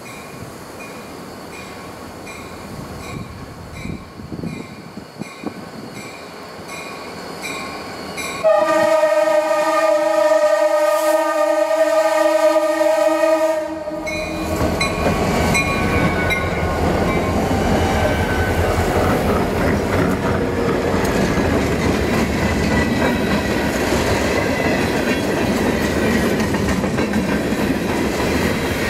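A grade-crossing bell dings steadily as a diesel freight train approaches. About eight seconds in, the locomotive's multi-chime air horn sounds one long, loud blast of about five seconds, cutting off as the lead unit reaches the crossing. The engine and a string of freight cars then roll past with wheels clicking over the rail joints.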